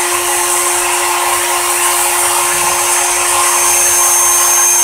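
CNC mill spindle running steadily, a high whine over a hiss, as a 0.77 mm carbide cutter peck-drills a 0.8 mm pinpoint gate hole.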